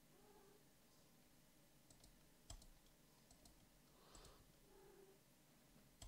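Near silence with a few faint, sharp computer mouse clicks, scattered through the middle and near the end.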